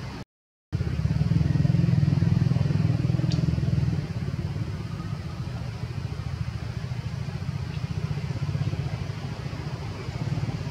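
A low, steady engine rumble with a fine even pulse. It cuts out briefly just after the start, then runs louder for a few seconds before easing off a little.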